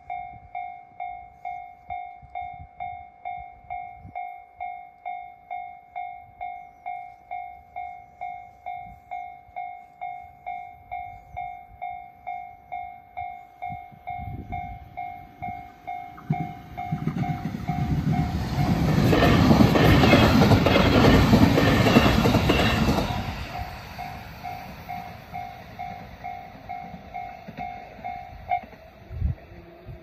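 Japanese level-crossing warning bell ringing its repeated electronic 'kan-kan' tone, about one and a half strikes a second, while an electric train passes. The train's rumble and wheel clatter build from about halfway in and are loudest for a few seconds before fading. The bell stops near the end, followed by a thump and a low hum as the barriers begin to lift.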